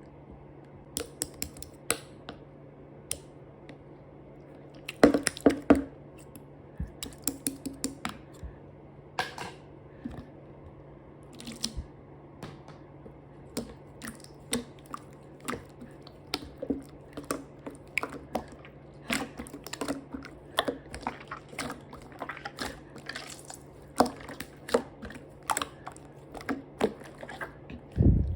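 Slime being squeezed and stretched by hand, making irregular sticky clicks and pops, some in quick clusters.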